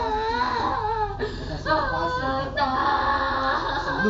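A high voice singing in long, wavering held notes.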